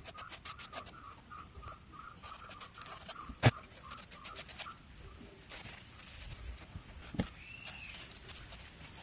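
A cloth rubbing quickly over a scooter speedometer's plastic dial face in rapid short strokes, with a sharp click about three and a half seconds in.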